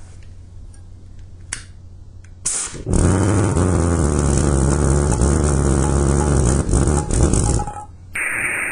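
Homemade jam jar pulse jet lighting with a short burst about two and a half seconds in, then running loudly with a steady, low-pitched drone for about five seconds before cutting out.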